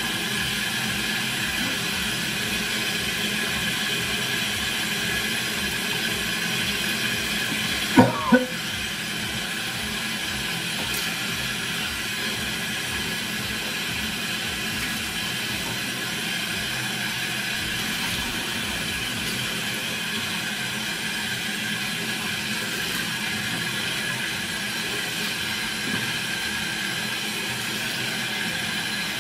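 Bathroom sink tap running steadily, the water splashing into the basin as someone washes their head and face under it. Two quick knocks come about eight seconds in.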